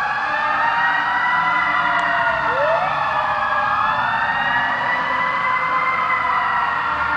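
Several fire truck sirens wailing at once, their slowly rising and falling tones overlapping. One siren winds up from low about two and a half seconds in.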